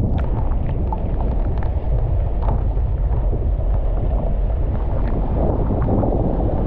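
Cyclone-force wind blowing hard and buffeting the microphone in a heavy, continuous low rumble, with scattered faint ticks through it.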